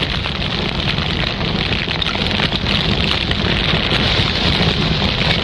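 Roaring fire sound effect: a steady rush of flames with dense crackling throughout.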